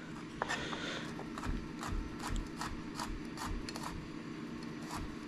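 Chef's knife chopping white onion on a wooden cutting board: a run of light, uneven knocks, two or three a second.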